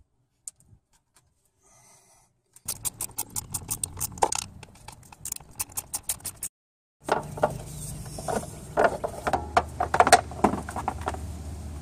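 Hand ratchet wrench clicking in quick runs on engine bolts, in two stretches with a short break between them. A low steady hum runs under the second stretch.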